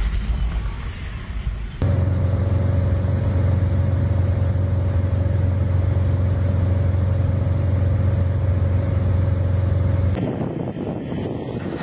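Steady low drone of an aircraft engine heard from inside the cabin, a strong hum with a fainter higher tone above it. It starts suddenly about two seconds in and cuts off about ten seconds in. Before and after it, wind buffets the microphone.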